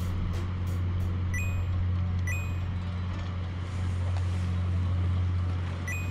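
A steady low hum like an idling motor runs throughout. Three short two-note electronic beeps, each stepping up in pitch, cut through it about a second in, a second later, and near the end.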